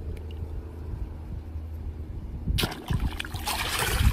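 Water splashing and sloshing as a hand grabs a fish in shallow water, starting about two and a half seconds in and lasting about a second and a half, over a low steady rumble.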